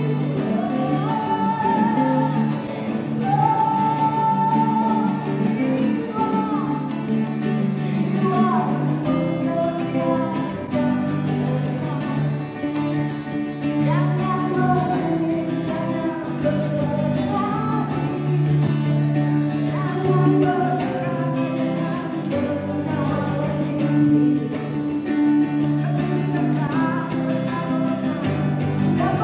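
Music: a song with a singing voice over instrumental accompaniment, a low note held beneath the melody.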